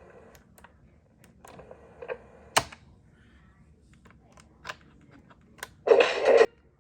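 Sony WA-55 cassette recorder's mechanical transport keys clicking as they are pressed, one sharp click about two and a half seconds in, then a short noisy burst of about half a second near the end.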